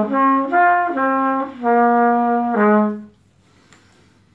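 Solo trumpet playing a short phrase of separate notes that step up and down, mostly in the low register; the longest note is held about a second before a final lower note, and the playing stops about three seconds in.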